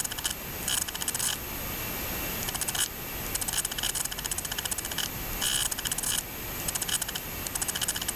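Film projector running: a steady mechanical hiss with stretches of rapid, even clicking that come and go every second or so.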